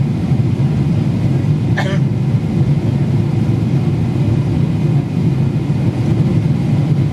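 Steady low cabin noise of a Boeing 777-300ER in flight: airflow over the fuselage and the hum of its GE90 engines, heard from inside the passenger cabin. A single short, sharp sound cuts in about two seconds in.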